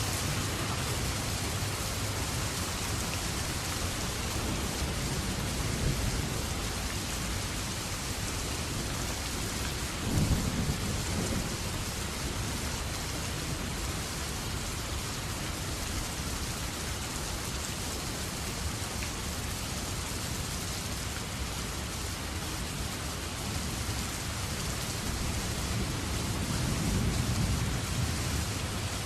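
Steady rain falling, with two low rumbles of thunder: one that starts suddenly about ten seconds in and another that swells up near the end.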